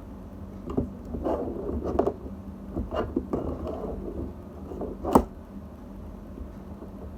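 Play-Doh toys and tools being handled on a table: a run of plastic knocks, taps and rustles, with one sharper knock about five seconds in, over a steady low hum.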